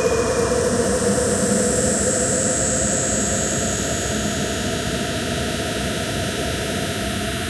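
Industrial noise music: a dense, steady wall of noise, with a mid-pitched drone fading out over the first few seconds and a high hissing band thinning out midway.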